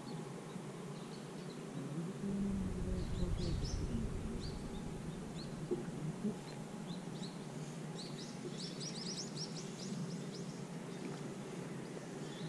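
Small birds chirping in short high calls, scattered through and packed into a quick run of chirps about eight to nine seconds in. A low rumble comes in from about two to five seconds in, and there are two sharp clicks around six seconds.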